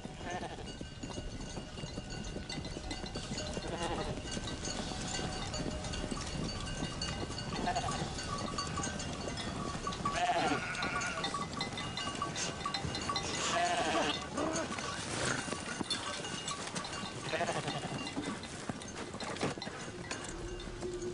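A flock of sheep and goats on the move, bleating about five times over a steady rustle of the moving flock.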